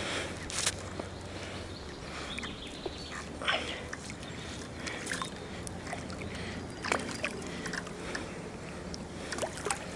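Intermittent water splashing and sloshing, a few short sudden splashes at irregular intervals over a steady low background hum.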